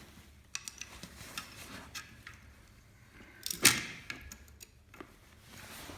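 Clicks and knocks of a Leitz 5180 heavy-duty two-hole punch being handled, with one loud clack about three and a half seconds in.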